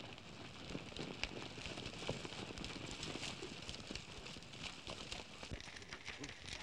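Hooves of several horses clopping irregularly as a group of riders moves about, under a steady hiss.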